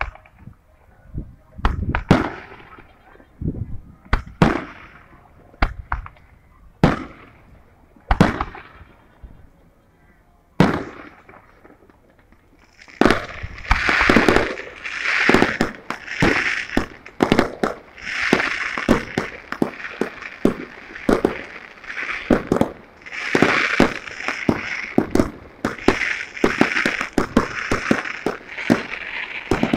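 Fireworks going off: single sharp bangs every second or two, each with a ringing tail, then from about halfway a dense, continuous run of crackling and popping.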